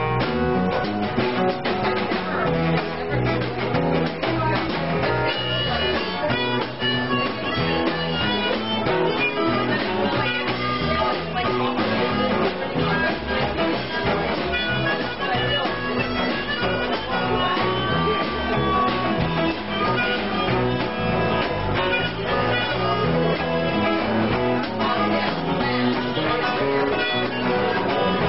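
Live band playing, with an acoustic guitar strummed throughout.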